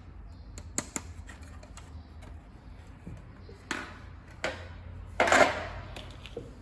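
The removable parts of a Philips HR1854 juicer being handled and taken apart: scattered clicks and clatter, with a louder scraping rattle about five seconds in.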